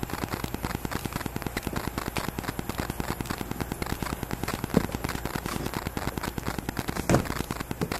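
Rapid, even electrical crackle of about ten clicks a second: interference picked up by an external microphone on a GoPro running with its wifi on. Two louder knocks stand out about five and seven seconds in, as the box is handled.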